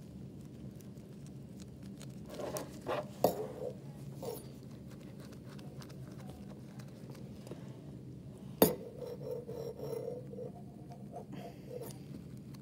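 Handling sounds of a metal dental hand instrument and gloved fingers working periodontal dressing on a plastic tooth model: a few light clicks around the third second, a single sharp click about eight and a half seconds in, and light scraping, over a steady low hum.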